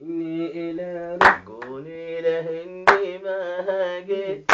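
A man singing an Arabic song without instruments, drawing out long, wavering notes, while someone claps hands loudly about every second and a half, three times.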